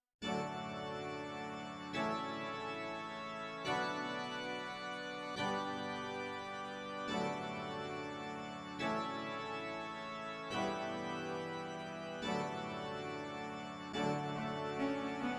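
Background music: sustained organ-like keyboard chords that change about every second and a half to two seconds, starting just after a brief silence.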